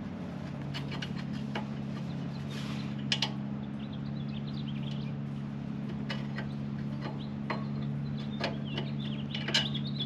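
Light metallic clicks and clinks as a nut is threaded by hand onto a bolt through the steel spoon plates of a plug aerator, over a steady low hum. Birds chirp near the end.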